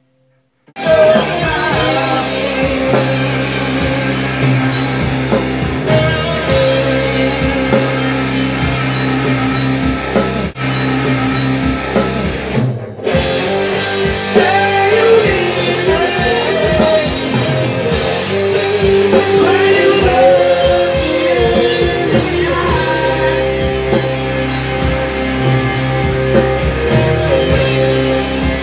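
Heavy rock song with electric guitar, drums and singing, kicking in abruptly about a second in.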